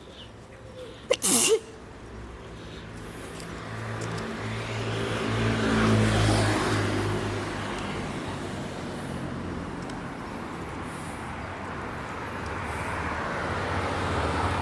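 One sharp sneeze about a second in. Then a motor vehicle passes, its noise swelling to a peak around six seconds and fading into steady street traffic.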